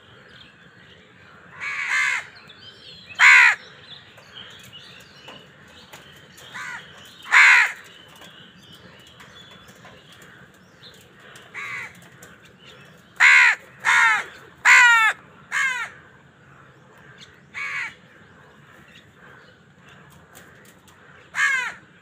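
House crows cawing: about eleven short caws at uneven intervals, with a quick run of four or five in the second half.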